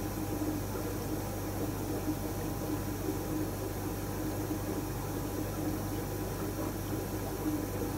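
Aquarium filtration running: steady bubbling and water noise over a constant low hum, typical of an air pump driving a fish tank's filter.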